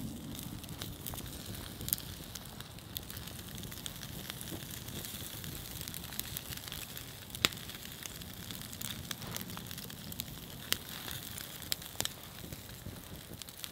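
Wood campfire burning under a wire grill: a steady crackling hiss with sharp pops every second or two, the loudest about seven seconds in.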